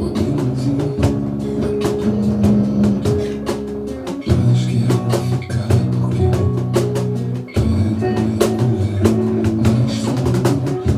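Batucada samba music: quick drum and percussion strokes over sustained low pitched tones, with the low notes changing about four and again about seven and a half seconds in.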